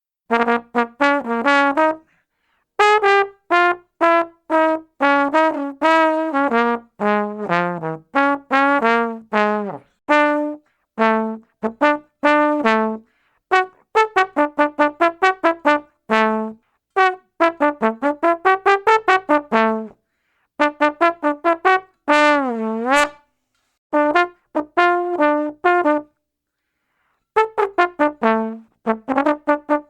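Tuba playing short runs of detached notes in quick phrases, separated by short silences, with one held note a little past two-thirds of the way through whose pitch wavers down and back up.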